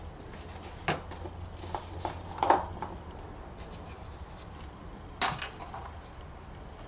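Honda Civic's plastic oil filler cap being handled and unscrewed: three separate small clicks and rattles, the loudest about two and a half seconds in, over a steady low hum.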